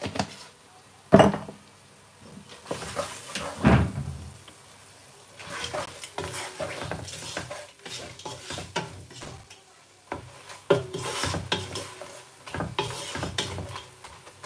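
A wooden spatula stirring and scraping fried onions and spices in a granite-coated pot, with sizzling oil. There are a few sharp knocks against the pot in the first four seconds, the loudest a little after one second.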